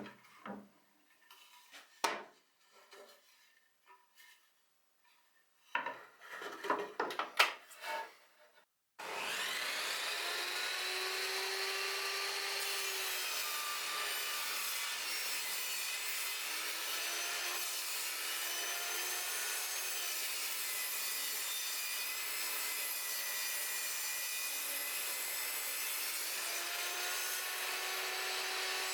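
Wood being knocked and shifted for several seconds, then a table saw starts about nine seconds in, spinning up and running steadily, its pitch dipping and recovering as it cuts wood.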